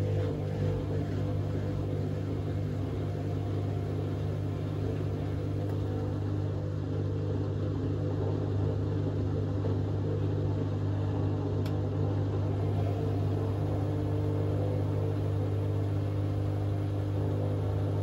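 Hotpoint Aquarius WMA32 washing machine on a fast spin, the drum and motor making a steady low drone with a constant hum. The owner takes the machine's state as the sign of worn drum bearings or a broken drum spider, with the motor also needing replacing.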